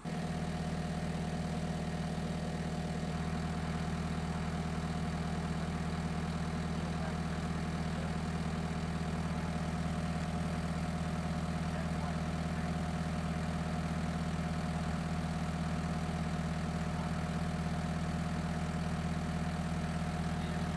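John Deere 325G skid steer's diesel engine running at a steady speed, its pitch and loudness unchanging throughout.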